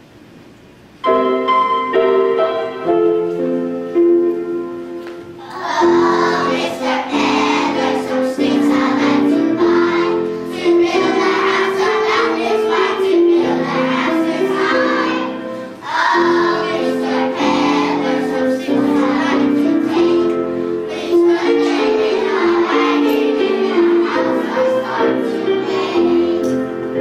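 A song for children's voices: instrumental accompaniment with steady held notes starts about a second in, and a group of young children joins in singing from about five seconds in.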